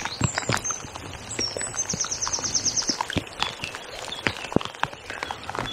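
Raindrops tapping irregularly close to the microphone over the steady rush of the river. A small bird sings a high, rapid trill between about half a second and three seconds in.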